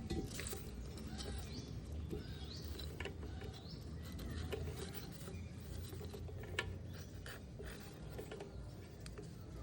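Scattered light clicks and taps, with small birds chirping faintly in the background.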